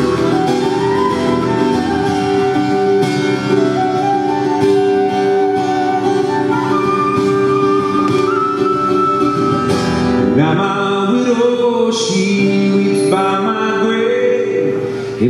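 Acoustic guitar and flute playing live together, the flute carrying the melody over the strummed guitar. About ten seconds in the flute drops out and a man starts singing over the guitar.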